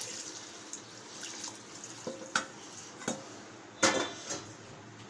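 Water poured from a steel bowl into an aluminium cooking pot of rice and vegetables, splashing for about the first second, followed by several sharp clinks of metal on metal, the loudest about four seconds in.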